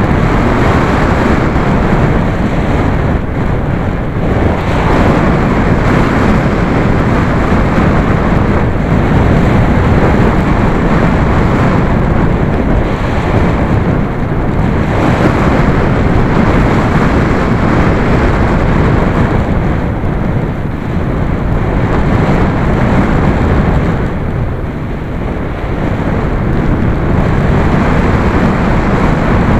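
Steady rushing wind noise as air streams past the microphone of a camera mounted under a radio-control glider's wing in flight. It eases briefly about three-quarters of the way through.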